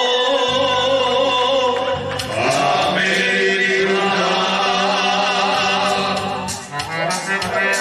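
Male vocal group singing a Krajina folk song, several voices holding long drawn-out notes over a low steady tone.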